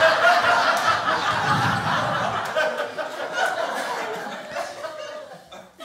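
Audience laughing, the laughter slowly dying down over several seconds.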